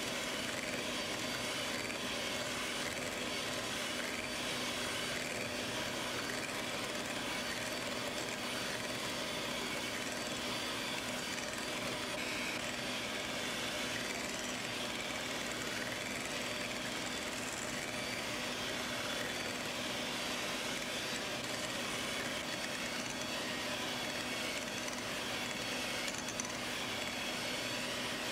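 Electric hand mixer running steadily, its twin beaters whipping double cream, with a constant motor hum and a swishing whir from the beaters in the thickening cream.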